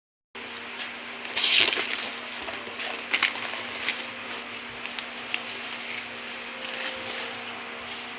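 Packaging being handled and unwrapped, with irregular crinkling and sharp clicks, the loudest crinkle about a second and a half in. A steady background hum runs underneath.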